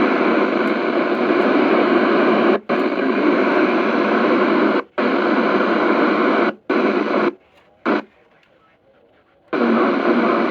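Weather radio receiver static: a loud, even hiss of radio noise that cuts out abruptly several times, drops away for about a second and a half near the end, then comes back.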